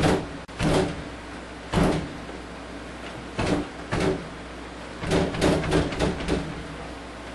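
Rear-projection TV cabinet being banged on its top by hand: single thumps about a second apart, then a quick run of several near the end. The set is being struck to jolt its loose connections back into contact.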